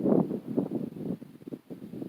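Wind buffeting the microphone in uneven gusts that rise and fall.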